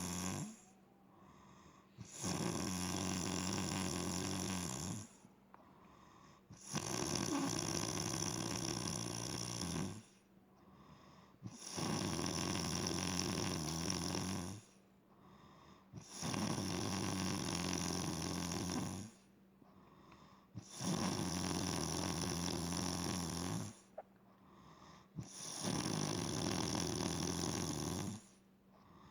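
A woman snoring loudly in deep sleep. A steady run of long snores, each about three seconds, comes with a short quiet pause between them, roughly one snore every four and a half seconds.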